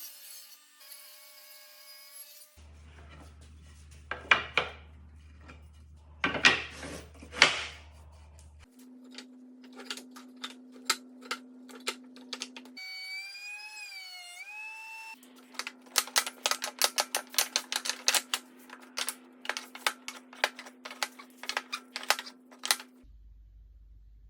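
Woodworking shop sounds in quick edited cuts: rasping strokes on wood, then runs of many sharp taps and knocks over a steady low hum, with a brief wavering whine about two-thirds of the way through.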